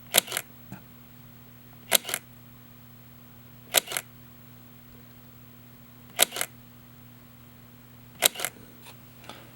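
Leica M Typ 262 digital rangefinder shutter firing at 1/250 s, five times about two seconds apart, each release a quick pair of clicks.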